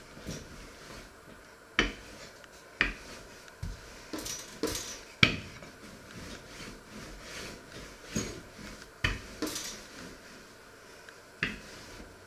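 Wooden rolling pin rolling out dough on a floured wooden board: soft rubbing strokes broken by sharp wooden knocks at irregular intervals as the pin is pushed, lifted and set back down.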